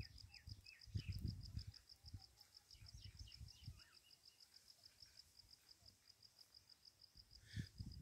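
Faint outdoor ambience: an insect chirping steadily at a high pitch, about six pulses a second, with a few faint bird chirps. Low thumps about a second in and again near the end.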